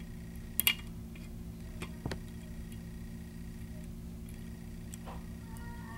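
A few faint metallic clicks and light scraping as a foil-wrapped key blank, an impressioning tool, is eased into the keyway of a pin-tumbler lock cylinder. The sharpest click comes under a second in and another about two seconds in, over a steady low hum.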